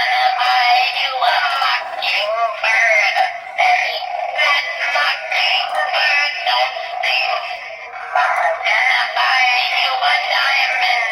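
Animated singing witch toy playing a sung song with music through its small, tinny speaker, with no bass.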